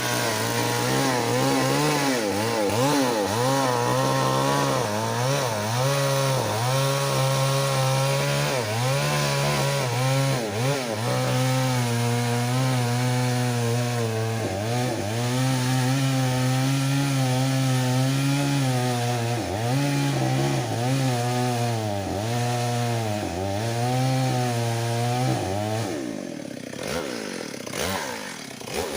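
Chainsaw cutting wood, its engine note repeatedly sagging and picking up again under load. About 26 seconds in it drops off and quietens.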